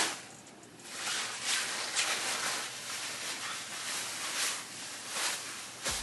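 Cropped puffer coat rustling in a series of swishes as the wearer stretches her arms out and shifts it on her shoulders.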